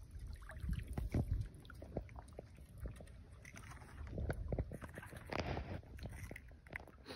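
Handling noise as a crappie is held and a jig is worked out of its mouth: scattered small clicks, knocks and rustles, with low thumps in the first second or so and a short rustling burst a little past the middle.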